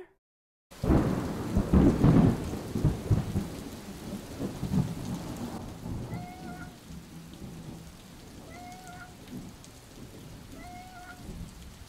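Thunder rumbling over steady rain, loudest about a second or two in and then easing off. Three short cat meows come in the second half.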